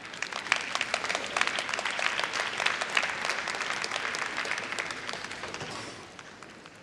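Audience applauding, swelling over the first couple of seconds and dying away near the end.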